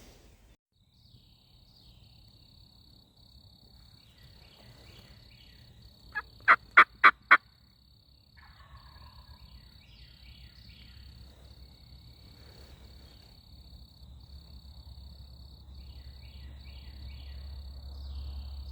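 Wild turkey gobbling once about six seconds in: a short, loud rattling burst of about five quick notes lasting roughly a second.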